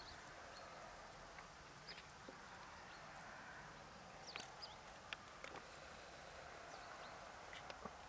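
Near silence: faint outdoor ambience, a steady low hiss with a few brief, high chirps and small clicks scattered through.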